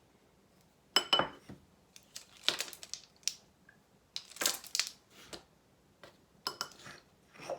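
Measuring spoon clinking and scraping against containers as dry spices are scooped out and added to a mixing bowl: several short separate clatters, the first about a second in with a brief ring.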